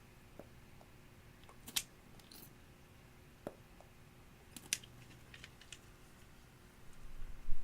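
Glossy slime being worked by hand, giving scattered sticky clicks and pops, with a louder squelching press near the end.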